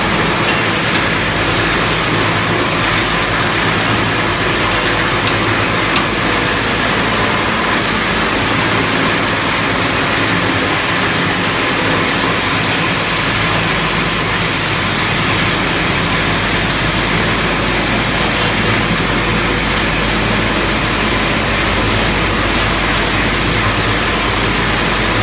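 PVC grinding and micronizing machinery running: a loud, steady mechanical din of milling and conveying with a low motor hum underneath.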